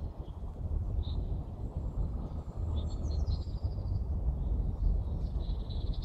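Songbirds calling: short high chirps about a second in and around three seconds in, then a longer trill near the end, over a steady low rumble.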